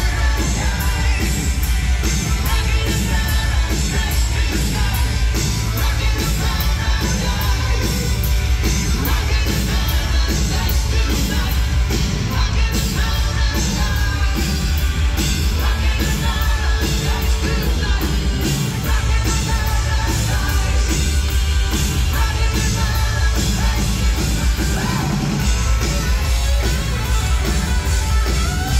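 Live rock band playing loud and steady: a singer over electric guitars, bass, keyboards and drums keeping a regular beat, heard from the audience in the hall.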